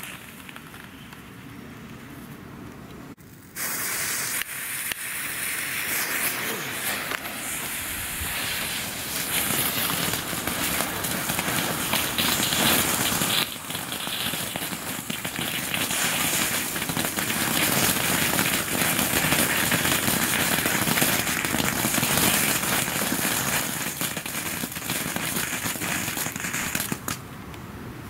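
Ground-novelty fireworks shaped like toy tanks, spewing sparks and flame with dense crackling, hissing and small pops. A quieter fizz comes first; about three and a half seconds in, the loud crackle starts suddenly and carries on, easing slightly near the end.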